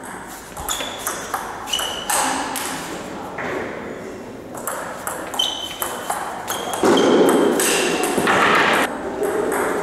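Table tennis ball clicking off the bats and pinging on the table during rallies, each hit with a short bright ring. Louder voices come in for a couple of seconds near the end.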